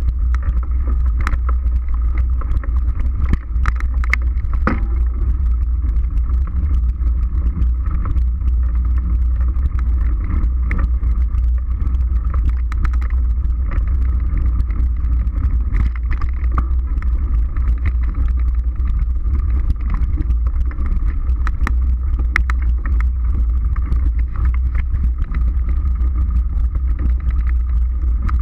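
Mountain bike ridden fast on a dirt forest trail, heard from a mounted camera: a steady low rumble of wind and tyre noise on the microphone, with frequent sharp knocks and rattles as the bike jolts over bumps and roots.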